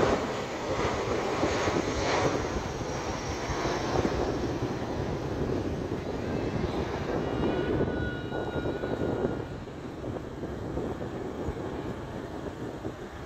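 Boeing 737 jet engines with a steady rushing roar overhead as the airliner climbs away, fading as it recedes over the last few seconds.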